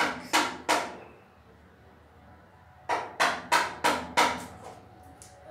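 A man laughing in short rhythmic bursts, about three a second: a run ending under a second in, then a second run of five bursts around three to four seconds in.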